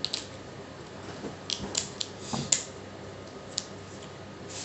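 Kitchen shears snipping through the shell of a boiled slipper lobster: about five short, sharp snips at irregular intervals.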